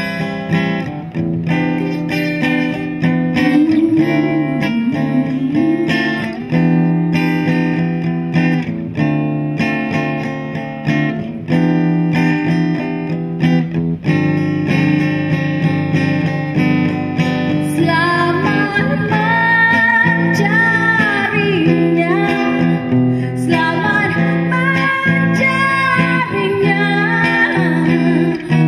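Acoustic guitar strumming chords at a steady pace. About two-thirds of the way through, a woman's voice comes in over it, singing long, wavering notes.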